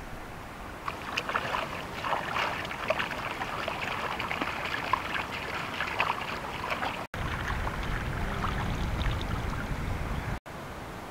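Water splashing and sloshing as a puppy is scrubbed and dunked by hand in shallow river water, with a low rumble in the second half. The sound cuts out briefly twice.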